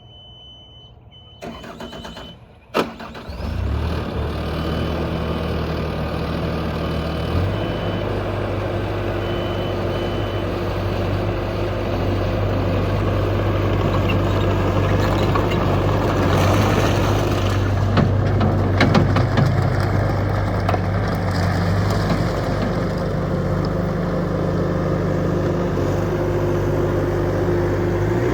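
Bobcat T550 tracked skid steer's four-cylinder turbo diesel cranked and starting about three seconds in, then running steadily and picking up speed a few seconds later. A high beeping tone sounds over the first several seconds.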